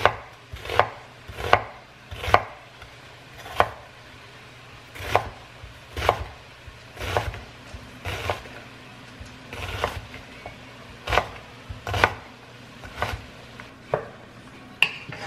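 Kitchen knife chopping an onion on a bamboo cutting board: sharp, separate knocks of the blade hitting the board, about one a second.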